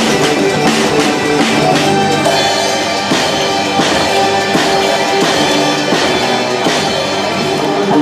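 Instrumental music from the animatronic band's show tape: a classical melody played in a rock arrangement, with sustained instrument lines over a steady drum-kit beat.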